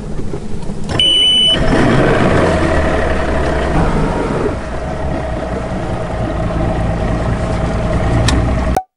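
Bass boat outboard motor started from the console: a short electronic warning beep about a second in, then the engine catches and runs, easing to a steady idle. The sound cuts off suddenly near the end.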